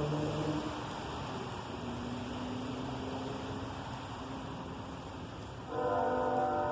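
Freight train running by with a steady rumbling rush and a faint diesel engine drone, then a locomotive air horn starts sounding about six seconds in, a chord of several steady tones.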